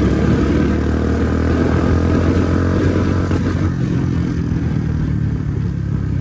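Motorcycle engine running steadily while being ridden, a low even drone with a rushing haze of road noise over it.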